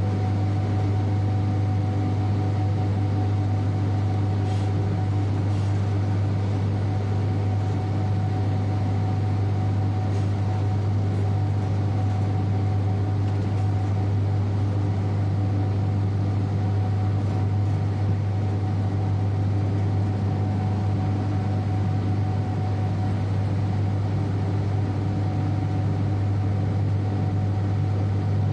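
Electric train running steadily, heard from inside the driver's cab: an even running drone with a constant low hum and a thin steady whine over it.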